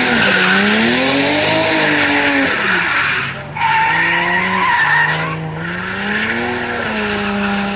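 Drift car's engine revving up and down through a slide while the rear tyres screech on the track, the rear tyre worn through to its steel cords. The screech cuts out briefly twice midway, then fades near the end, leaving the engine holding a steady note.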